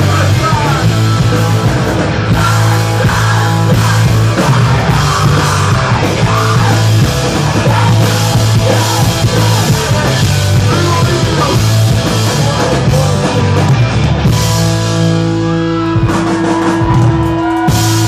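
Rock band playing live and loud, with electric guitars, bass and a drum kit in a punk rock style. About fourteen seconds in, the playing changes to a long held note.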